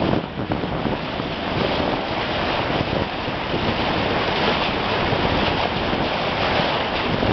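Water rushing and splashing steadily as a moving boat's hull cuts through the sea, with wind buffeting the microphone.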